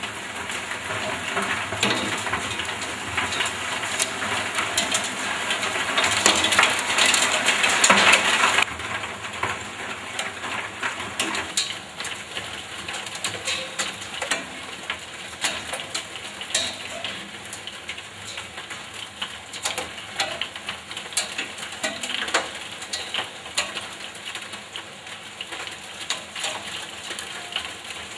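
Heavy rain and hail coming down, a dense rushing hiss full of sharp clicking hits. It is loudest for about the first eight seconds, then drops suddenly and carries on more lightly.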